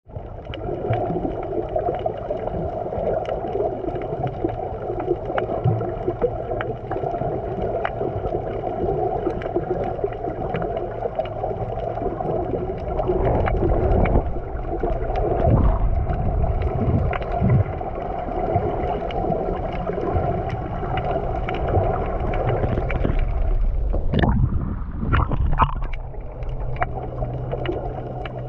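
Boat engine running steadily at low speed, with water splashing and sloshing. About 24 seconds in the engine's sound changes to a lower steady hum.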